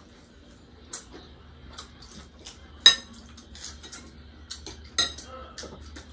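Cutlery clinking against dishes: scattered light clicks, with two sharper ringing clinks about three and five seconds in.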